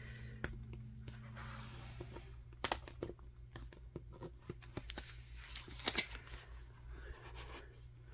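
Cardboard board-book pages and a fold-out flap being handled and turned: soft rustling and sliding with a few sharp clicks and taps, the loudest about a third of the way in and again about three quarters through, over a steady low hum.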